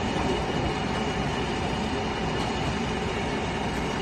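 Steady, continuous rumbling noise from heavy machinery or a vehicle running, without change in level.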